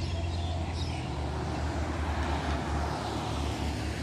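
Road traffic noise: a vehicle passing, its sound swelling about a second in and easing off near the end, over a steady low rumble.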